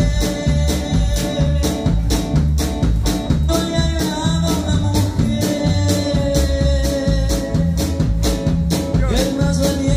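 Live band playing a song with a steady drum beat: electric guitar, electric bass, keyboards, drum kit and conga.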